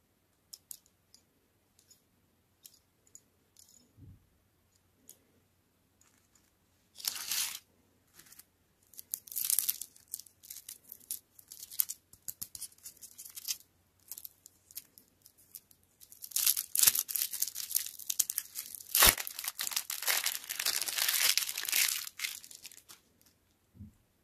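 Crinkly plastic lollipop wrapper being tugged and torn off by hand: light clicks of handling at first, then bursts of crinkling and tearing that grow loudest and most continuous in the last third.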